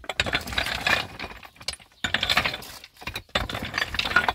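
Rapid clattering and clinking of hard objects knocking together, in about three bursts.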